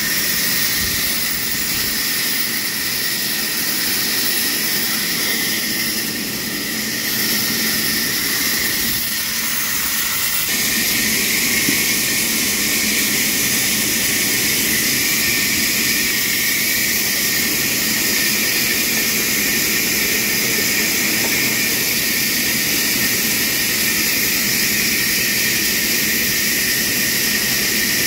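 Trolley band sawmill running steadily, its blade cutting lengthwise through a log carried on the trolley. The tone changes a little about ten seconds in.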